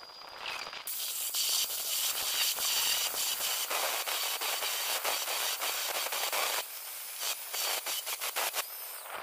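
Handheld angle grinder with a thin cutting disc biting into the steel of a truck chassis member, a harsh grinding hiss. It starts about a second in and turns broken and stuttering in the last couple of seconds as the disc catches and lifts off the metal.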